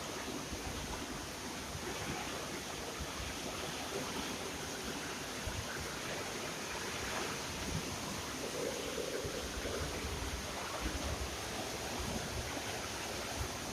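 Heavy rain pouring down steadily, an even hiss of rainfall.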